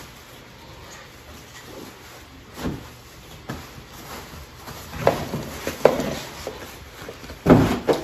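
Plastic-backed puppy training pads being unfolded and spread in a plastic tub: scattered rustling and crinkling, with a few louder handling noises, the loudest near the end.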